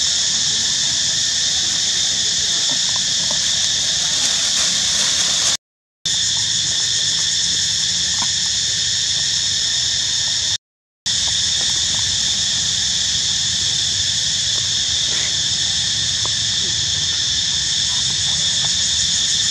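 Steady high-pitched insect chorus, broken by two brief silences about six and eleven seconds in.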